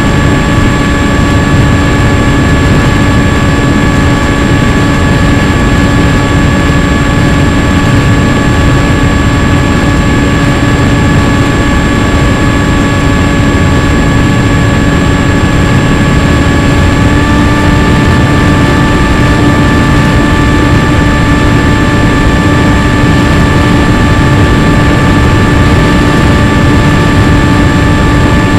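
RC airplane's motor and propeller running steadily at cruise, a held whine over a heavy rush of wind noise; the pitch steps up slightly about 17 seconds in.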